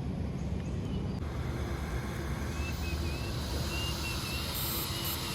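Short, faint electronic beeps at slightly shifting pitches from the ESC of an OMPHOBBY M5 electric RC helicopter as it is powered up, over a steady low background rumble.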